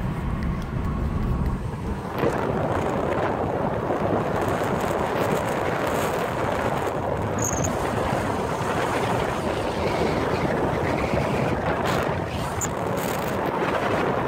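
Steady road and wind noise of a car driving at speed, heard from inside the car, growing louder and brighter about two seconds in.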